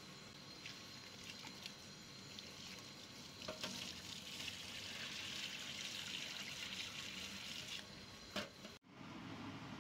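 Kitchen tap water running into a pot of rice as it is rinsed, with the cloudy rinse water tipped off into a stainless steel sink from about a third of the way in, louder for a few seconds. There are a couple of knocks, and the sound cuts off abruptly near the end.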